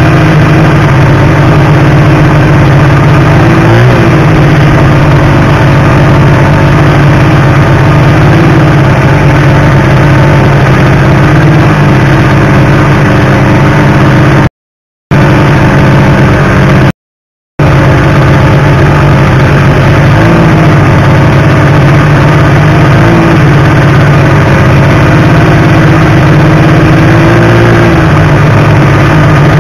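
Snowmobile engine running steadily and loud, heard from on board the moving sled, with a few small rises and falls in pitch. The sound cuts out completely twice, for about half a second each, near the middle.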